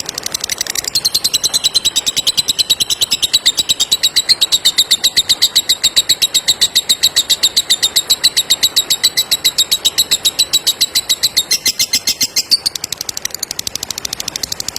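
Lovebird giving a long 'ngekek' chatter: a fast, high-pitched run of repeated notes, many per second, louder and fuller from about a second in until near the end, then carrying on more softly.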